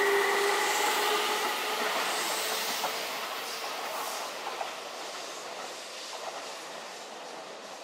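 Keihan 1000 series electric train running past, with wheel-on-rail noise and a steady whine that dies away within about three seconds. The whole sound fades as the train draws away.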